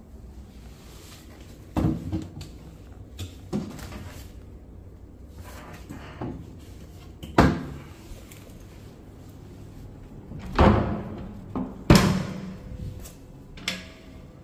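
Wooden doors and cupboard doors being opened and shut: a run of about eight knocks and bangs, the loudest a pair of bangs about two-thirds of the way through.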